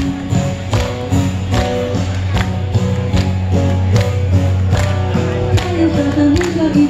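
Live amplified music from a Chinese folk-song medley, played on electric guitar over a steady beat of sharp strokes a little under a second apart. A woman's singing voice comes in about six seconds in.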